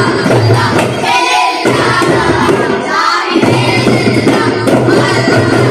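Daff muttu: a chorus of boys singing together while beating daf frame drums in a steady rhythm, the low drum sound breaking off briefly twice.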